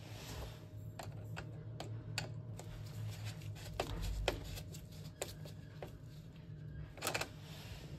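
Screwdriver being pushed and twisted through a rubber cable-entry grommet in a combi boiler's plastic wiring panel, giving scattered light clicks and scrapes, with a slightly longer scraping burst near the end.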